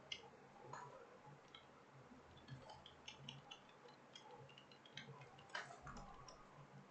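Faint, irregular clicking of computer keyboard keys being typed on, with a few louder key strikes, over a faint low hum.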